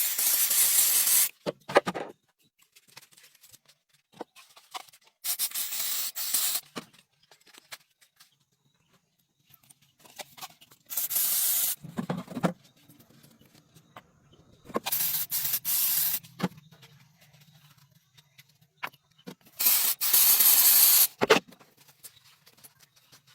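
Spray nozzle hissing in short bursts, each about a second and a half long, five times a few seconds apart.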